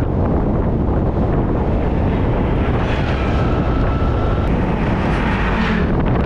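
Steady wind buffeting the action camera's microphone on a moving motorcycle, with the motorcycle's running and road noise underneath.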